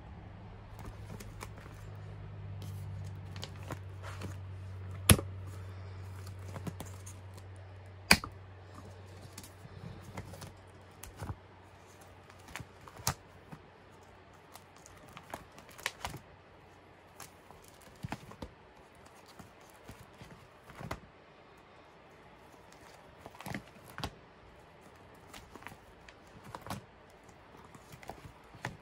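Clear plastic photocard sleeve pages in a ring binder being handled and turned: a string of crinkly clicks and taps, with two much sharper snaps in the first third. A low hum runs under the first ten seconds or so.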